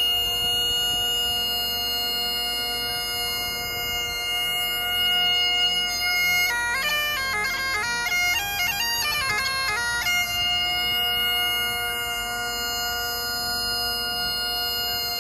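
Highland bagpipes playing: steady drones under a held chanter note, with a quick run of ornamented melody notes in the middle before settling back onto the held note.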